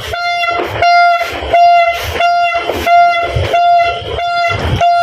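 A horn held on one steady note, while firecrackers and fireworks bang sharply over it about twice a second.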